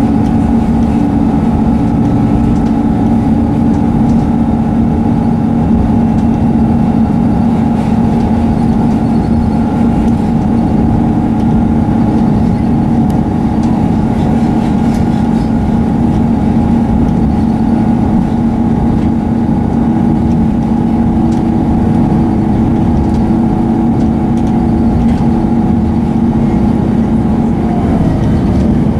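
Class 158 diesel multiple unit running steadily at speed, heard aboard: a steady engine and transmission hum over rumble from the wheels and track. Near the end the hum drops slightly in pitch.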